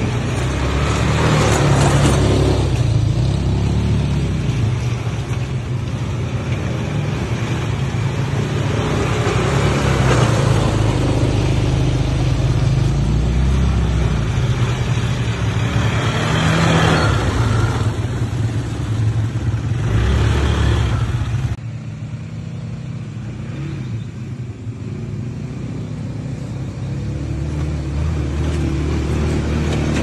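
ATV (quad bike) engine running and revving up several times, its pitch rising with each burst of throttle. The sound drops abruptly about two-thirds of the way through, then slowly builds again.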